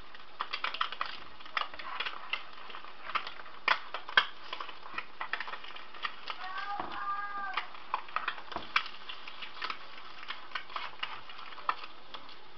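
Eggs frying in a pan: a steady sizzle with many irregular sharp pops and crackles of spattering fat.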